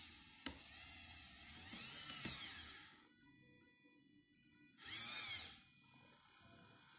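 Small electric motor of the exoskeleton glove's cable-driven actuator whining as it drives the fingers into flexion, its pitch swelling and falling. It runs for about three seconds, stops, then runs again briefly for under a second about five seconds in.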